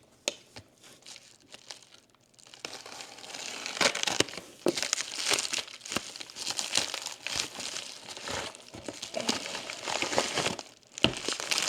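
Plastic shipping packaging crinkling and rustling as a package is handled and opened, with small crackles and clicks throughout and a sharper knock near the end. It starts after a couple of seconds of near quiet.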